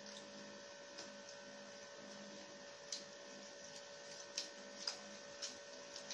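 Steady electrical hum with a handful of short clicks and crackles from eating paper-wrapped egg rolls: bites, chewing and the paper wrapper being handled. The clicks come mostly in the second half.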